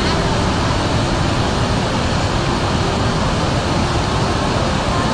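Floodwater of a river in spate rushing past bridge piers: a loud, steady torrent.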